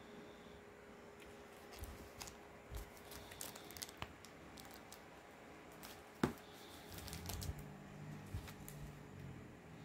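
Plastic comic book bags crinkling and rustling as bagged comics are handled and shifted, with scattered light clicks and one sharper click about six seconds in.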